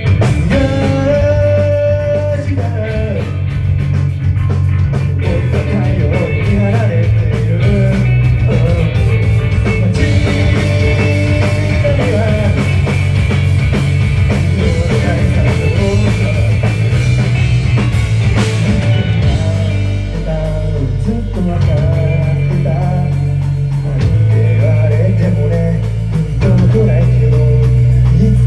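A rock band playing live: electric guitars over drums, the full band coming in loud right at the start and carrying on at full volume.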